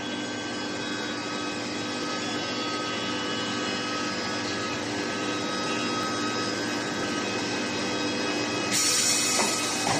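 Steel pipe induction tempering line running: a steady industrial drone with several steady high tones, joined near the end by a loud hiss.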